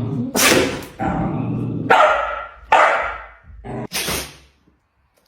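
An animal sneezing over and over, four or five sudden bursts in quick succession with voiced sounds between them, dying away about four seconds in.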